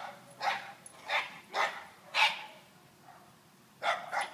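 Small dogs, a dachshund and a little white dog, barking in short, sharp barks at people passing by: four barks in the first two seconds or so, a pause, then two quick barks near the end.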